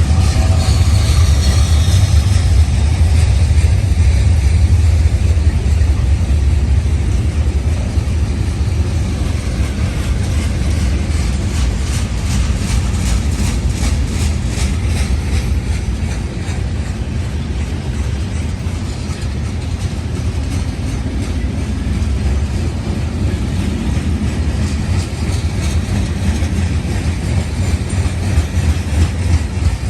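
CSX freight train rolling past: a steady low rumble of wheels on rail, with a stretch of regular wheel clicks near the middle.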